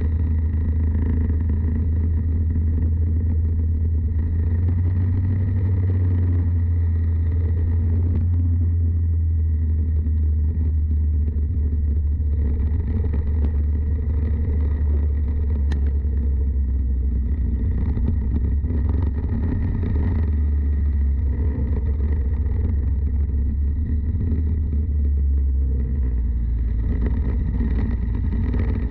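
Racing kart engine running steadily under a heavy low rumble, heard close up, with little change in pitch.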